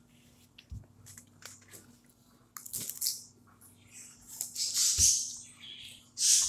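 Crisp hard taco shell being bitten and chewed up close: a few small clicks at first, then a run of loud crunches from about halfway through.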